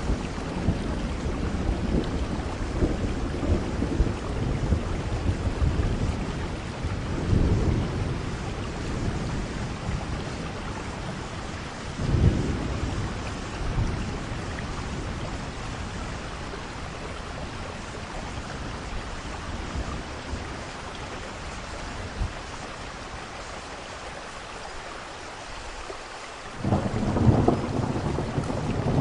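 Heavy rain falling steadily, with rolling thunder rumbling underneath. A sharp thunderclap comes about twelve seconds in, the rumbling dies down for a while, then a new loud roll of thunder breaks in suddenly near the end.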